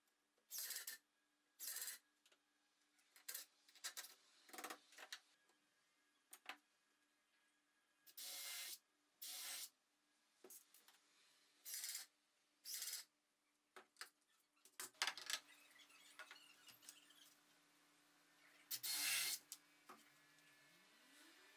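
Short, sharp-edged bursts of compressed-air hiss, about ten of them and often in pairs, over a faint steady workshop hum; near the end a low tone rises in pitch.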